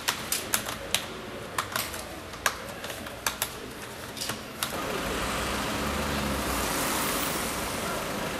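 Irregular sharp clicks of typing on a computer keyboard, two or three a second, then a steady wash of street noise from a little past halfway.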